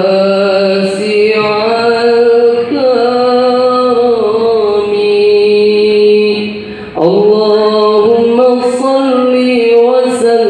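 A man chanting unaccompanied into a hand microphone in an ornamented Islamic recitation style: long held notes with wavering melismatic turns, a short breath just before seven seconds in, then a fresh note starting high.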